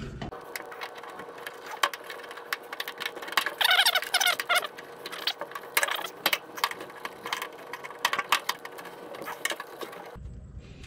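Metal tabs of a painted VW Beetle dash speaker grille being bent over behind the dashboard: a run of irregular sharp metallic clicks and taps, with a brief squeaking scrape about four seconds in.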